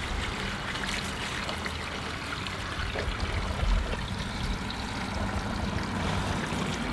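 Steady trickling and splashing of water running through a freshly installed backyard water feature, with a low rumble underneath.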